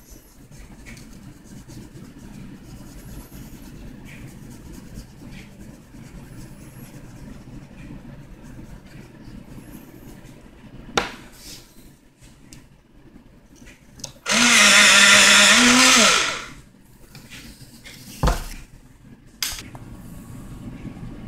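A small electric motor runs loudly for about two seconds, a little past the middle, its whirr swelling and easing off, with a grinding hiss over it. A few short knocks come before and after it.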